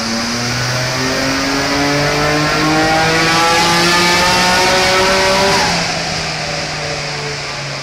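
Nissan Skyline R34 GT-R's twin-turbo RB26DETT straight-six on a full-throttle dyno power pull, its pitch climbing steadily through the revs. About six seconds in the throttle closes and the revs fall away.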